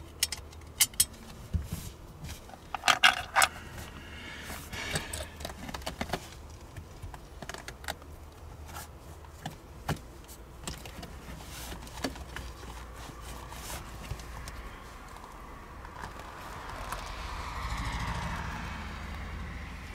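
Scattered small clicks, taps and light rattles of loose screws and a plastic-and-rubber shift boot trim frame being handled and worked up out of a truck's centre console, with a louder cluster in the first few seconds. A soft rushing sound swells and fades near the end.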